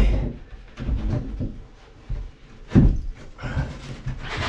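A sheet of marine plywood being shifted and knocked against the boat's wooden beams and frames as it is test-fitted: a few dull wooden thumps, the loudest about three seconds in.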